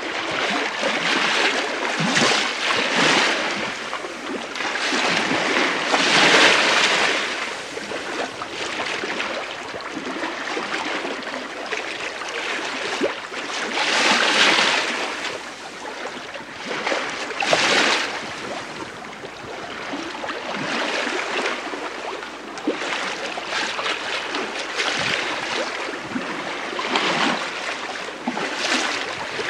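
Bow wave of the sailing ship STS Malcolm Miller under sail in a light wind, heard from the lee quarter: water rushing along the hull, swelling and easing in surges every few seconds.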